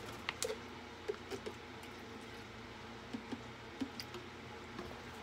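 Quiet handling noise: a scattering of faint clicks and soft taps from a plastic zip-top bag being held open by hand, over low room tone.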